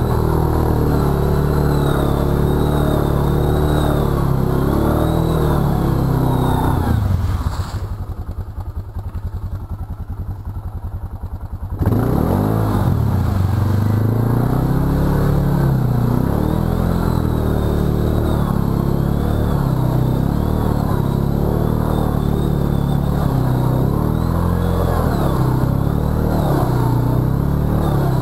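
Arctic Cat VLX700 ATV engine running under throttle through deep mud and water, its pitch rising and falling with the throttle. About seven seconds in it drops to a low idle for a few seconds, then revs back up.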